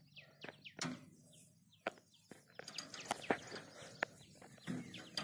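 Irregular light metallic clicks and knocks of hand tools working on a combine harvester's header reel drive and its rusted, jammed chain adjustment, with faint bird chirps in the background.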